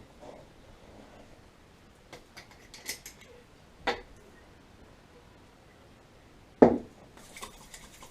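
Clinks and knocks of a Floid aftershave bottle and its cap being handled: a few light clicks, a sharper clink about four seconds in, and a loud knock about six and a half seconds in, then light rustling.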